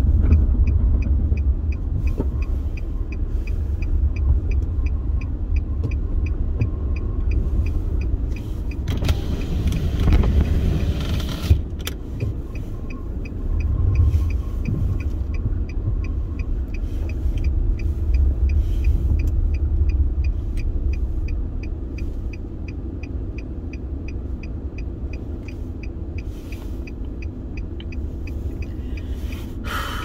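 Inside a car's cabin driving through a blizzard: a steady low rumble of engine and road, with a regular light ticking about twice a second. A louder rushing swell comes and goes about nine to eleven seconds in.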